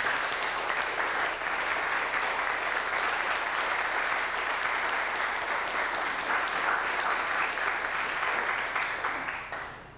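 Congregation applauding, a dense steady clapping that fades away near the end.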